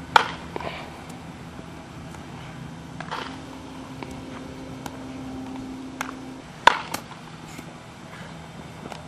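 Sharp knocks of baseball infield practice: balls struck off a bat and caught in leather gloves, a few seconds apart, the loudest just after the start and about two-thirds of the way in. A steady low hum runs underneath.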